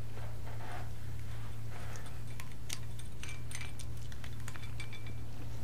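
Faint clicks and small clinks of a plastic dust cover being worked off the valve of a small medical oxygen cylinder, mostly in the middle of the stretch, over a steady low hum.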